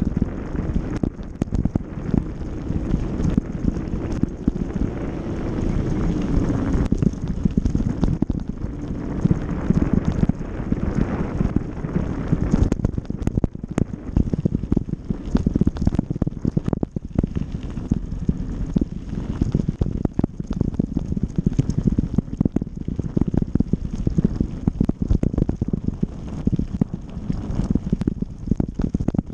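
Mountain bike riding fast down a dirt trail: wind buffeting the microphone and tyres rolling over dirt, with a constant clatter of knocks and rattles from the bike over bumps.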